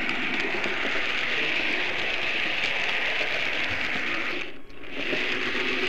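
Märklin model train running along the track, a steady rushing rattle of wheels and motor picked up by a camera riding on the train; the sound drops out for a moment about four and a half seconds in.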